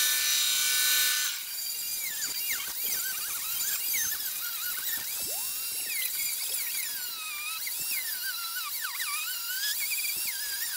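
A benchtop band saw runs briefly, then a handheld rotary tool with a sanding drum grinds a 3D-printed plastic grille shell. Its high whine wavers up and down in pitch as the drum loads and unloads against the plastic.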